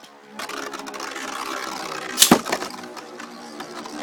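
Two Beyblade spinning tops, Earth Wolf 105WD and Fury Capricorn 100HF, whirring and scraping as they spin around a plastic stadium. About two seconds in they collide with a single sharp clack.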